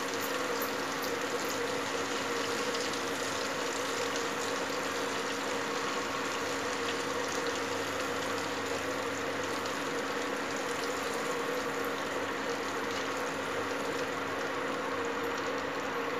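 Cumin seeds and asafoetida frying in hot oil and butter in a non-stick kadai, a steady sizzle at the tempering (tadka) stage, stirred with a silicone spatula. A steady low hum runs underneath.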